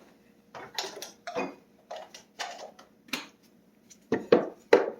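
A run of about eight sharp, uneven knocks and clatters from hard objects being handled and knocked together; the last two, near the end, are the loudest.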